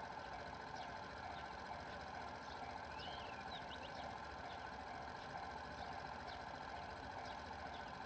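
Japanese level-crossing warning bell ringing steadily as a train approaches, with short high bird chirps over it, one longer call about three seconds in.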